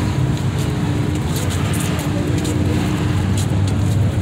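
A car engine running steadily, with a constant low hum and a faint steady tone above it, and a few light clicks over the top.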